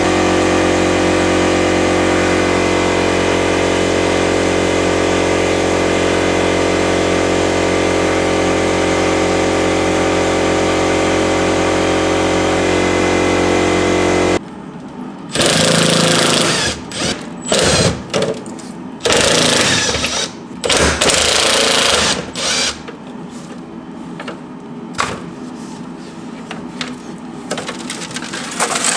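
A steady machine running with an even, many-toned hum for about fourteen seconds, cutting off abruptly. After it, a power tool runs in short bursts of about a second with pauses between them.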